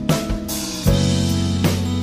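Background music: a steady instrumental track with drums and guitar.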